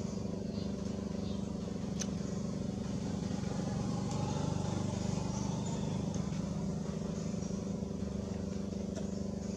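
Steady low hum of an engine running without change, with a faint sharp click about two seconds in and another near the end.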